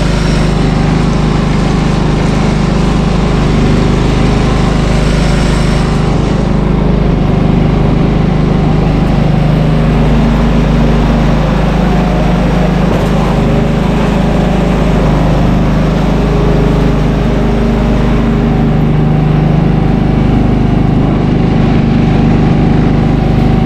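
John Deere 240 lawn tractor engine running steadily under load with its PTO-driven snowblower attachment engaged.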